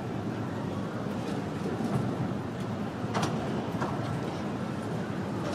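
Milan's 1928-built class 1500 'Ventotto' tram rolling on its rails toward the listener over a steady low city rumble, with a few sharp clicks along the way.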